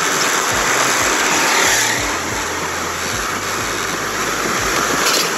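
Motorcycle passing close on a narrow street, its engine and road noise rising to a peak about one and a half seconds in and then easing off, with low thumps through it.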